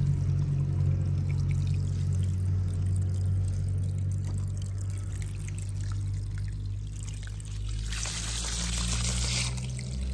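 Water trickling and pouring, with a louder rush of water for about a second and a half near the end, over a steady low hum.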